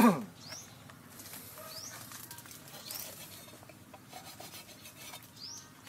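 Rubbing and rustling of a hand against a coconut palm's fruit bunch and stalks. A brief, loud falling sound comes at the very start, and four short, high, rising chirps come through over the rest.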